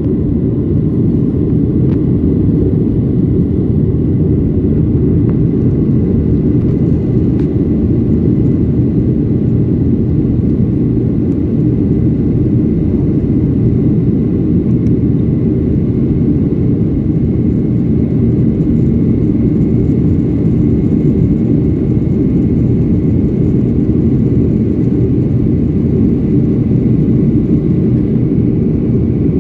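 Airliner cabin noise in flight after takeoff: the jet engines and rushing air make a loud, steady, unbroken low rumble, with a faint thin steady tone above it.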